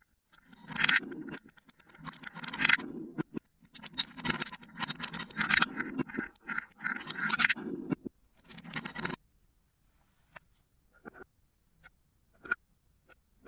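Small balls rolling down a wooden chute and circling around inside a wooden bowl, one rolling run after another. After about nine seconds the rolling stops and only a few light clicks are left.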